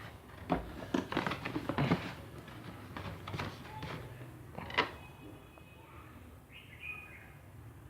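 Handling noise of the drill set's packaging: a quick run of taps, clicks and rustles in the first two seconds, then one sharper knock about five seconds in.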